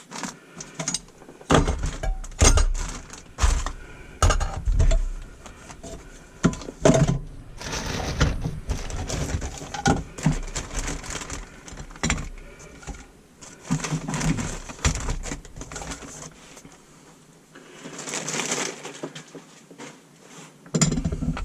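Irregular knocks, clanks and scraping of hand tools against plumbing parts while an old garbage disposal and sink drain assembly are taken apart, with a stretch of rubbing or scraping a little before the end.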